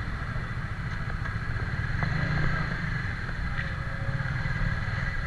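Motorcycle engine running steadily at idle or low speed.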